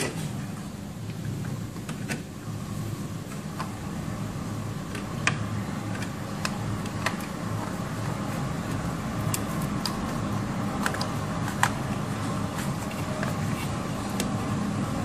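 Steady low background hum with scattered light clicks and taps, from hands handling plastic parts and a screw inside a Canon large-format plotter.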